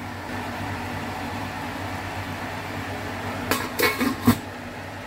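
A stainless steel dome lid is set onto a wok, a few sharp metal clinks over about a second, about three and a half seconds in, the last the loudest. Under it a steady low hum runs throughout.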